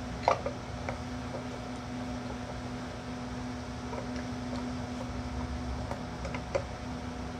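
Steady low hum in the room, with a few light clicks and knocks of metal pipe clamps being handled and adjusted on a glue-up; the loudest click comes just after the start, another near the end.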